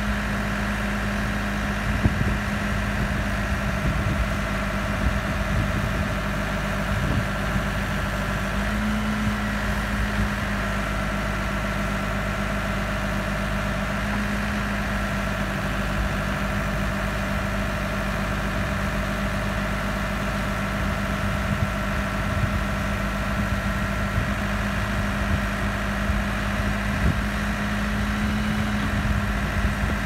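2007 Case 580 Super M Series II backhoe's four-cylinder diesel engine running steadily as the rear boom and bucket are worked, its note swelling slightly at times, with a few brief knocks.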